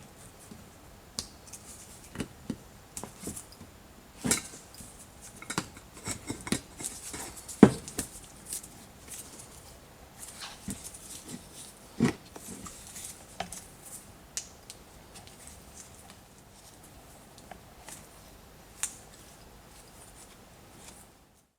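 Irregular clicks, light metallic clinks and knocks of hands handling tools and parts, busiest in the first half with the loudest knocks about halfway in. The sound cuts off suddenly just before the end.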